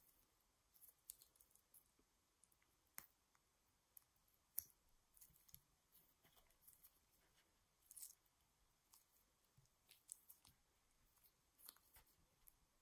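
Faint wet squishes and small sharp clicks and pops of small ripe tomatoes being squeezed and burst between gloved fingers. They come irregularly, the sharpest snap about four and a half seconds in.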